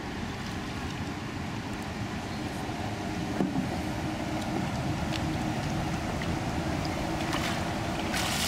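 Steady low rumble throughout. About seven seconds in, a canoe paddle slaps and throws a loud splash of water toward the microphone.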